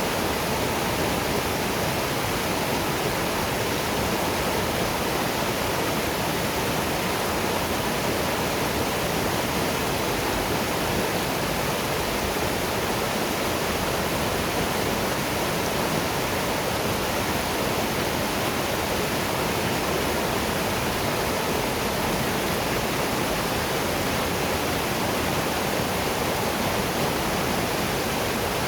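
Waterfall and river water rushing in a steady, even noise with no changes.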